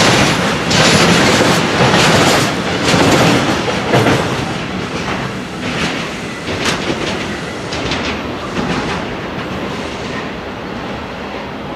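Container flat wagons of an intermodal freight train rolling past, with loud clattering and clicking from the wheels and the empty-looking wagon frames, the kind of strange noises these wagons make. The clatter thins out and the noise fades steadily over the last half as the train draws away.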